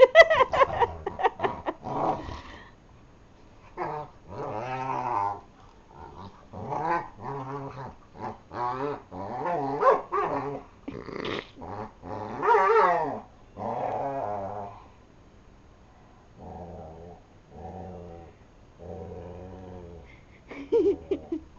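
Two dogs play-fighting, growling over and over with a few sharp yips and barks near the start, and lower, quieter growls toward the end.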